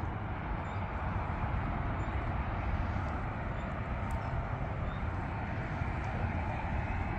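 Steady outdoor background noise: a low, uneven rumble with a hiss above it, and no distinct events.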